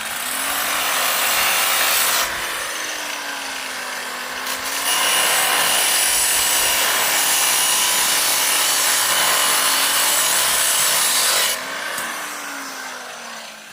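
Power tool cutting, most likely an angle grinder cutting steel rebar. Its motor pitch dips and recovers as the disc bites. There are two long spells of cutting, the second running from about five seconds in until a little before the end, when the motor winds down.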